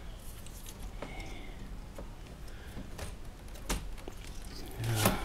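Scattered clicks and knocks of parts being handled as pieces are slotted into a 3D printer's frame, with the loudest knock about five seconds in.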